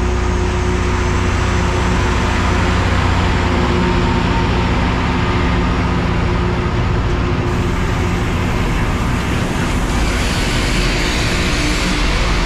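LORAM rail grinder train passing close by, its diesel engines running loud and steady. Near the end a bright hiss and scrape joins in: the grinding stones working against the rail.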